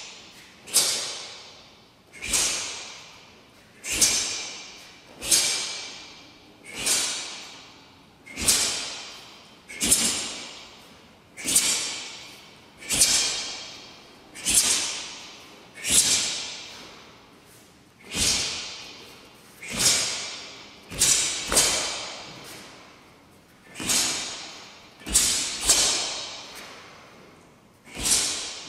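Sharp snaps of a taekwon-do uniform, one with each technique of a pattern, about one every second and a half and some in quick pairs. Each trails off in the hall's echo.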